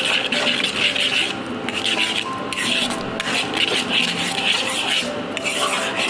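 A rasping scrape repeated in strokes about a second apart, over faint background music.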